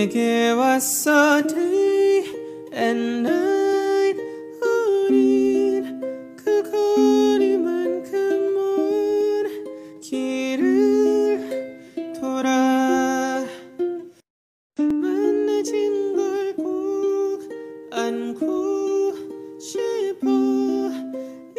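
Background music: a light melody of plucked notes that start sharply and fade, broken by a short silence about two-thirds of the way through.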